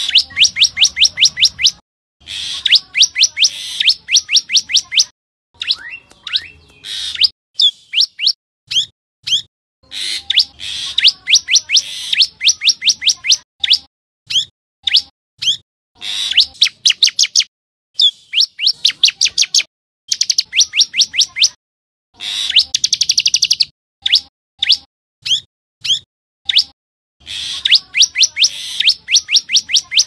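Common tailorbird calling: loud bursts of rapid, sharp, high repeated notes, several a second, each burst lasting one to two seconds, separated by short pauses and a few slower single notes.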